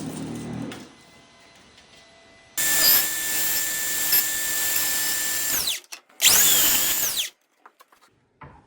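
A power saw cutting lengths of door casing trim, run twice: about three seconds, then about one second, with its whine falling as the motor winds down at the end of each run. A few light clicks of handling follow.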